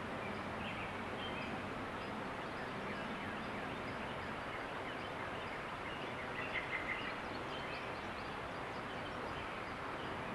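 Steady outdoor background hiss with faint bird chirps scattered through it; a short run of chirps about six to seven seconds in.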